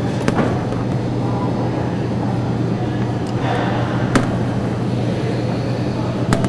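Tomato sorter-sizer machinery running with a steady low hum. Three sharp clicks come through, near the start, about four seconds in, and near the end, as its plastic cup flaps are handled.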